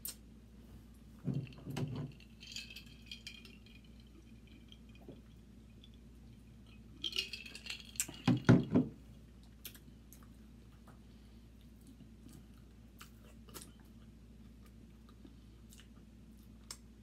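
Close-miked eating of seafood boil by hand: chewing and sucking at crab shells and fingers, with scattered small clicks of shell. There is a short burst of clatter about a second in and a louder cluster of knocks and clatter about eight seconds in.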